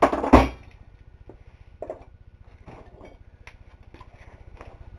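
Two hard hammer blows land on a laptop's plastic and metal casing at the very start, followed by a few light scattered clicks and rattles of broken pieces.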